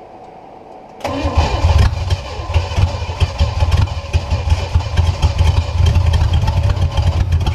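A long-dormant small-block Chevy 350 marine inboard V8 fires about a second in and keeps running, loud and uneven, with irregular ticking and popping over a deep steady hum.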